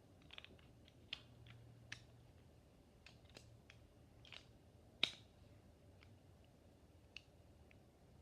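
Faint, irregular plastic clicks and taps as small Beyblade parts are handled and fitted together, with one louder snap about five seconds in.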